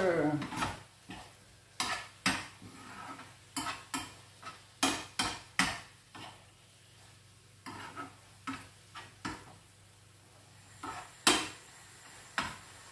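A metal spoon stirring sautéed eggplant and ground chicken in a frying pan, with irregular scrapes and clicks against the pan, over a faint sizzle of the food frying.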